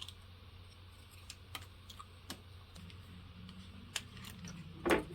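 Small scattered plastic clicks and taps from handling and prying apart a car headlight switch housing, with a louder knock near the end.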